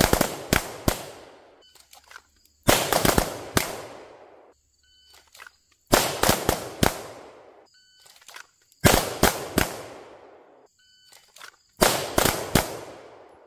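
Semi-automatic pistols fired by three shooters drawing and firing double taps together. There are five volleys about three seconds apart, each a quick cluster of several shots with a ringing tail. Each volley comes right after a short shot-timer beep.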